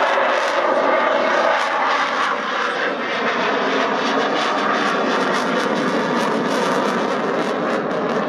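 Eurofighter Typhoon's twin Eurojet EJ200 turbofans as the jet flies a tight banking turn: loud, steady jet noise with a crackling edge.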